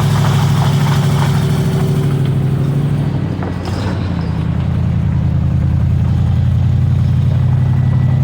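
Car engine of a four-wheel-drive 1991 Honda Accord with a 4.6 engine, running steadily under load while towing a backhoe uphill. It eases off briefly about three and a half seconds in, then picks back up.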